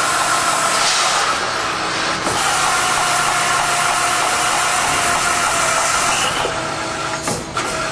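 CNC beam drill line drilling through 3/8-inch structural steel plate with a 13/16-inch Ocean Penetrator drill bit: a steady cutting hiss and machine hum with a faint steady whine, dipping briefly near the end.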